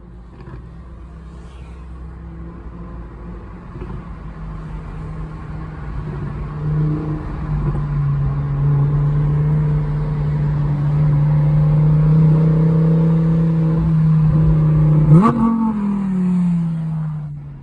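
Lamborghini Huracán EVO's 5.2-litre V10 running at a steady note that grows steadily louder. About fifteen seconds in it revs up sharply with a crack, then the note falls away and stops just before the end.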